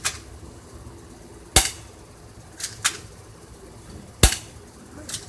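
Airsoft gun firing single shots: a string of sharp pops and clicks, the two loudest about a second and a half and four seconds in, with fainter clicks between.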